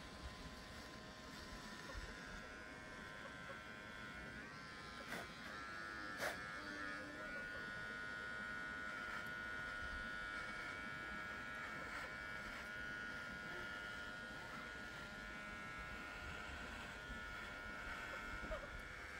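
Electric shaver buzzing steadily against the face, with a couple of sharp clicks about five and six seconds in.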